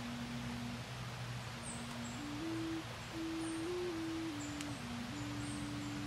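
Slow tune of pure, whistle-like tones that hold and step up and down in pitch, over a low steady hum, with a few faint high chirps.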